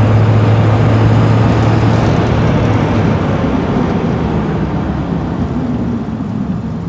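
Cab interior of a 7.3 Powerstroke Ford F250 Super Duty at highway speed: a steady low engine drone over road and wind noise. The drone drops away about three seconds in, and the road noise fades as the truck slows under hard braking from about 60 mph, bedding in new brake pads and rotors.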